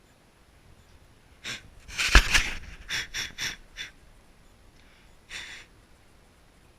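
A series of short hissing puffs of air, seven or eight in all, with a sharp click in the loudest cluster about two seconds in and a last puff near the end.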